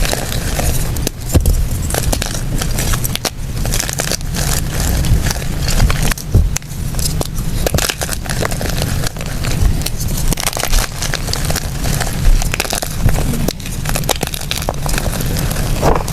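Blocks of gym chalk being crumbled and crushed by hand: a continuous dense crunching and crackling.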